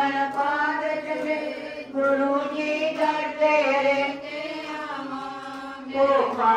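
One voice singing a devotional chant in long, drawn-out notes, with short pauses for breath between phrases.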